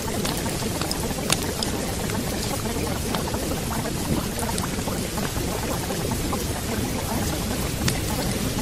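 Steady water-sound ambience: an even wash of rain-like noise with scattered small drip-like ticks.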